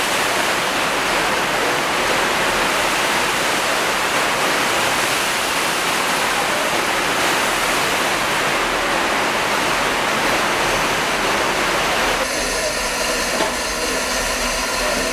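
Small steam locomotive standing in its shed, hissing steam: a loud, steady hiss. About twelve seconds in it changes, with faint whistling tones over it.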